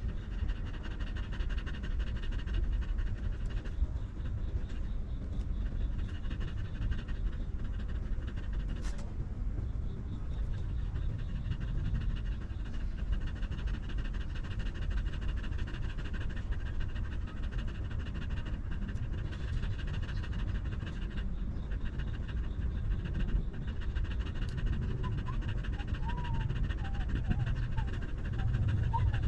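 Mother dog panting steadily with her mouth open, quick even breaths. Near the end, a few faint high squeaks from her newborn puppies.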